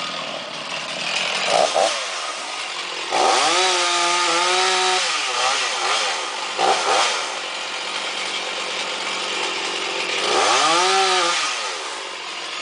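Chainsaw engine revving up and dropping back to idle several times: two short blips, and two longer runs held at high revs for about two seconds each, about three seconds in and again near ten seconds.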